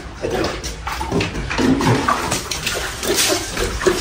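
Water splashing irregularly as a lion laps from a plastic bucket of water while water is poured over its back from a jug to wash it.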